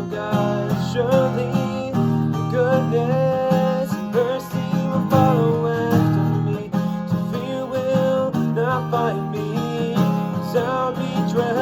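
Acoustic guitar strumming chords, with a wordless sung melody gliding and wavering over it.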